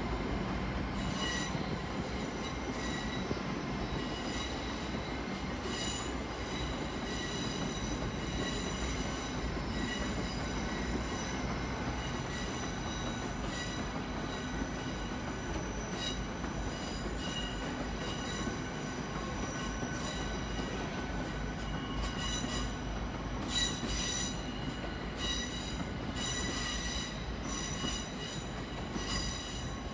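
Great Western Railway Intercity Express Train moving slowly around the curved platform track, its wheels squealing on the rails in high, on-and-off tones over a steady rumble. Scattered clicks come from the wheels.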